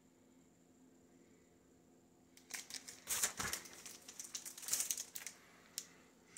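Faint room tone, then about two and a half seconds in, a few seconds of rustling, scraping and small clicks from a framed picture being handled, with one more click shortly after.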